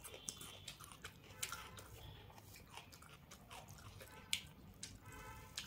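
Close-up eating sounds: crunchy bites into a raw onion slice and chewing a mouthful of rice, with many short crisp clicks and crunches.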